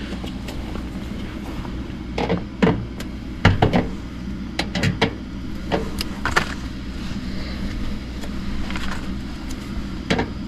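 A steady low mechanical hum with irregular short clicks and knocks over it.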